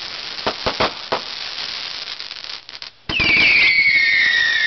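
Fireworks going off: a few sharp bangs and crackling, then about three seconds in a loud whistling starts, several whistles at once sliding slowly down in pitch, the loudest part.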